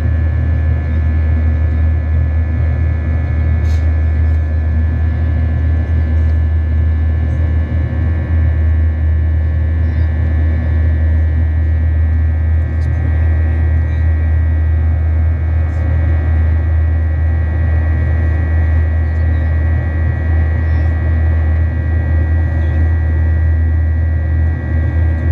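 Cabin noise of a Boeing 737-800 in its climb, heard from a window seat over the wing: a steady low rumble from the CFM56-7B engines and airflow, with a steady high whine from the engine fans on top.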